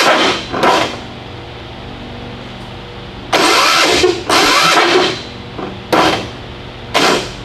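Titan 7500 diesel generator's engine being started, which sounds violent: about five loud bursts of cranking and firing under a second each, irregularly spaced, over a steady low engine hum.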